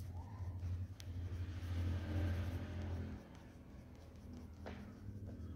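Coloured pencil scratching on paper in light shading strokes, over a low steady rumble that stops about three seconds in. There is a single click about a second in.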